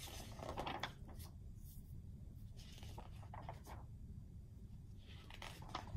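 Pages of a paperback picture book being turned and handled, giving about three soft paper rustles.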